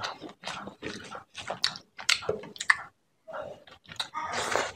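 Close-miked wet chewing and lip-smacking of a mouthful of rice and fish-head curry eaten by hand, short smacks about two or three a second. They pause briefly about three seconds in, then come denser near the end as the next handful goes in.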